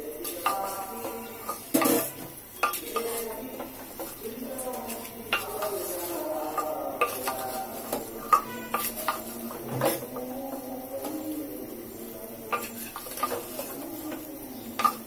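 A spatula stirring meat and spices in an open metal pressure cooker, scraping and knocking against the pot many times. A distant voice carries on faintly in the background.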